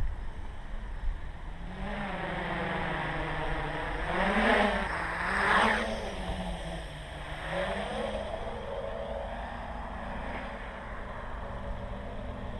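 Armattan CNC 355 quadcopter's brushless motors and propellers whining, the pitch sliding up and down with the throttle, with the loudest surges about four and a half and five and a half seconds in.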